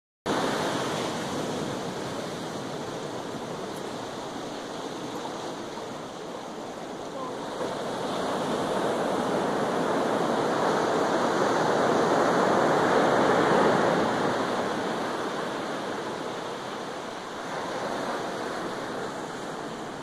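Ocean surf breaking and washing up the beach: a steady rushing that builds over several seconds to its loudest a little past the middle, then ebbs.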